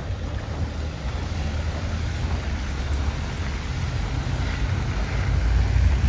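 City street ambience: a steady low rumble of passing road traffic, mixed with wind buffeting the microphone.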